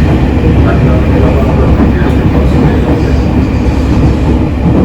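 JR East 253 series electric train running, heard from inside a passenger car: a steady, loud rumble of the wheels on the track.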